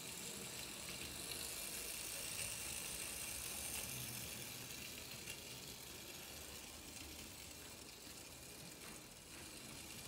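1960s Tri-ang clockwork toy train running on its track: the wound-up spring motor and gears whirring steadily as the locomotive pulls its wagon, a little softer in the last few seconds.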